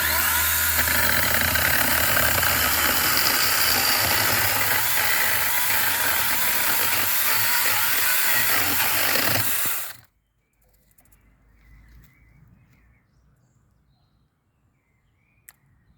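Gisam cordless electric chainsaw running and cutting through wood for about ten seconds, then stopping abruptly.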